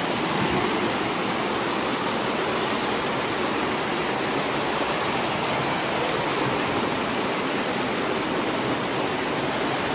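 Waterfall rushing steadily close by, a constant even hiss of falling water.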